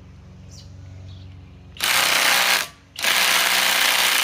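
Cordless compact impact driver on its highest speed, hammering loudly in rapid impacts: a burst of about a second, a short break, then continuous hammering from about three seconds in.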